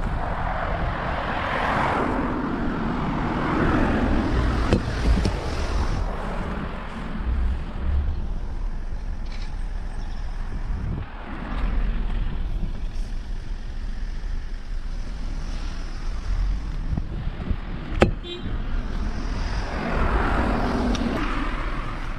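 Road traffic on a street: cars passing, swelling near the start and again near the end, over a steady low rumble. One sharp click near the end.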